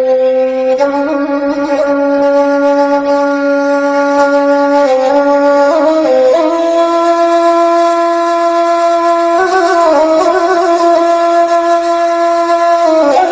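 A woodwind instrument playing a slow melody of long held notes, moving to a new pitch every few seconds.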